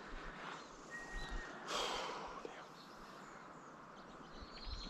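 Quiet outdoor ambience with low rumble, a short breathy whoosh about two seconds in, and a brief thin whistle-like note about a second in.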